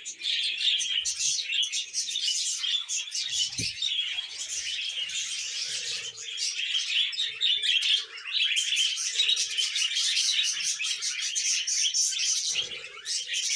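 A flock of budgerigars chattering and chirping, a dense, continuous stream of quick high chirps and warbles from many birds at once.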